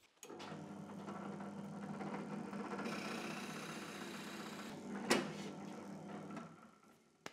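Benchtop drill press motor starting up and running steadily while a twist bit bores into a wooden block, with a single sharp knock about five seconds in; the motor then winds down near the end.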